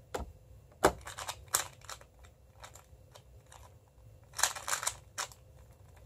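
MoFang Jiaoshi MF2S plastic 2x2 speedcube being turned fast by hand, its layers clicking and clattering in quick runs of sharp clicks. There is a run about a second in and a denser one about four and a half to five seconds in.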